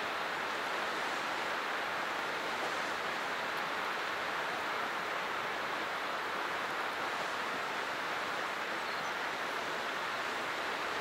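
Flood Geyser erupting: a steady rush of splashing boiling water and venting steam.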